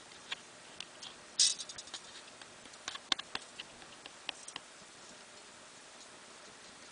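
Scattered small clicks and ticks of thin bus wire being handled and soldered onto solar cells, with a brief louder crackle about one and a half seconds in; the clicks die away about two-thirds of the way through.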